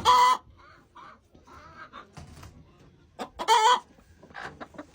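Hens clucking in a coop, with two loud, short squawks from a hen, one at the start and one about three and a half seconds in. They are the protest calls of a broody hen sitting in a nest box.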